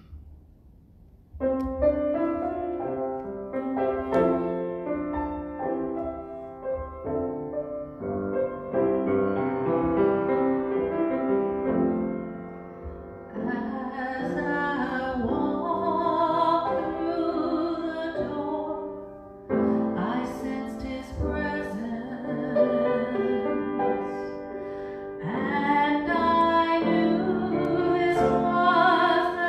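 Grand piano starts an introduction about a second and a half in. From about halfway, a woman sings with vibrato over the piano accompaniment.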